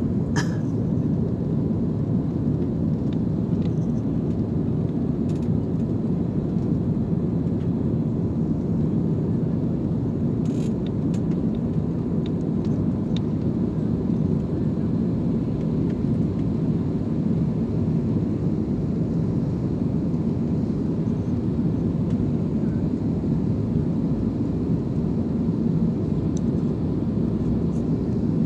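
Steady drone of jet engines and airflow heard inside an airliner cabin in flight, with a few faint clicks.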